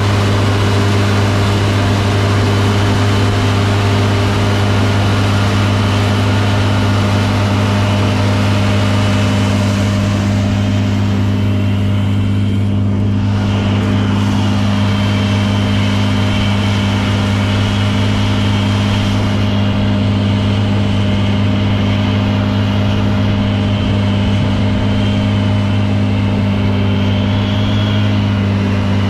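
Diesel engine of large harvest machinery running steadily at constant speed: a strong low hum with steady higher tones over it.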